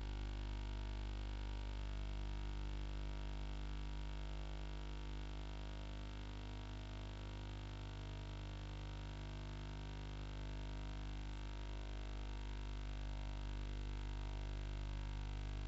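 Steady electrical mains hum with a buzzy edge, unchanging throughout, with no other sound over it.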